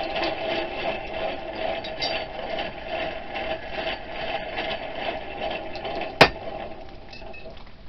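A steady rushing noise, then about six seconds in a single sharp hammer blow on a maker's-mark stamp held against the hot knife blade on the anvil, striking the mark into the steel.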